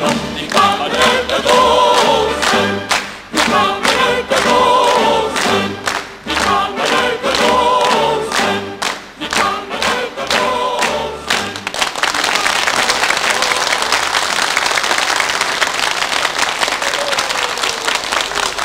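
Stage music with a choir singing over drumbeats, ending about twelve seconds in, followed by steady audience applause.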